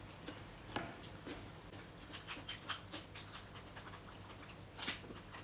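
Scattered crisp clicks and snaps from raw vegetable stalks being handled and broken by hand, a quick run of them about two to three seconds in and the loudest snap near the end.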